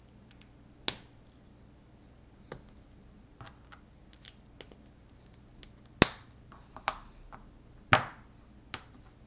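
Small plastic LEGO pieces being snapped together by hand: scattered sharp clicks, the two loudest about six and eight seconds in.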